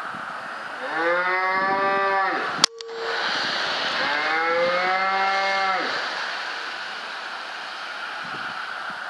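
A cow mooing twice, each call about two seconds long, with a single sharp crack of a rifle shot between the two calls.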